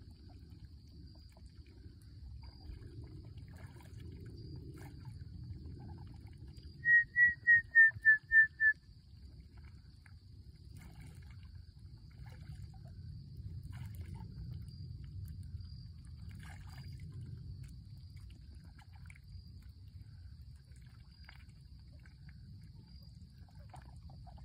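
Pond-side outdoor ambience: a steady low rumble like wind on the microphone, with a faint steady high whine and scattered light ticks. About seven seconds in comes a loud run of seven short high piping notes, about four a second, falling slightly in pitch.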